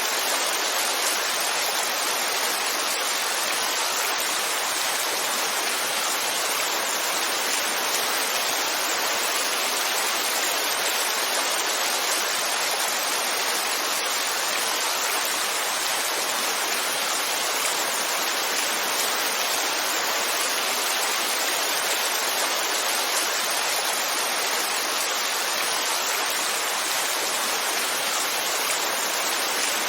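Heavy rain falling steadily: an even, unbroken hiss with no single drops or thunder standing out.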